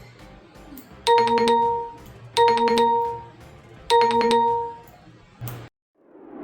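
A short electronic chime jingle, likely an edited-in sound effect, played three times in a row, each about a second long and roughly a second and a half apart. A brief blip follows, then the sound cuts off suddenly.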